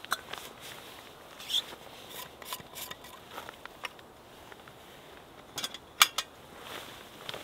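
Light metallic clicks and scrapes from handling a brass Trangia spirit burner and a thin folding metal stove. A few sharp clicks about six seconds in, as the stove's panels are shifted, are the loudest.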